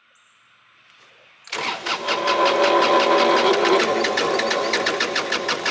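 Kubota D1105 three-cylinder diesel being cranked by its starter about a second and a half in, a steady rapid chugging of about seven strokes a second for some four seconds without catching. Typical of an engine that has run out of fuel, which the owner thinks it has.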